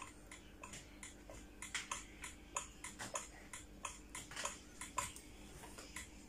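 Faint, irregular light clicks and taps from fingers and hands handling a phone and touching a glass bathroom scale, a few per second.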